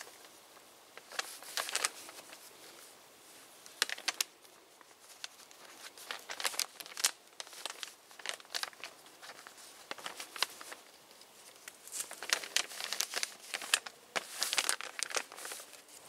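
Camo plastic tarp crinkling and rustling in irregular bursts as it is handled, its grommets being lined up and tied to another tarp's grommets.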